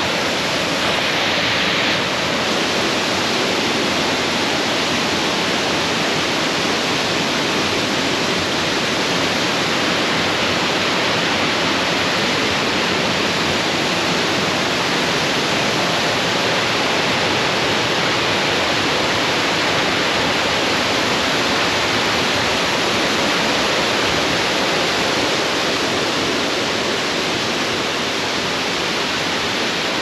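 Waterfall pouring, a loud, steady rush of falling water.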